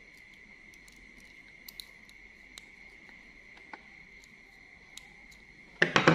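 Faint metallic clicks of a sewing machine's thread tension assembly being handled, ending in a quick cluster of louder clicks and knocks near the end. A steady high-pitched whine runs underneath.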